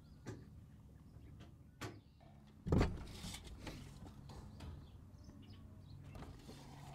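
Tin snips working the leg of a steel standing-seam roof panel: a couple of sharp metal snips, then a louder knock about three seconds in, over a faint low hum.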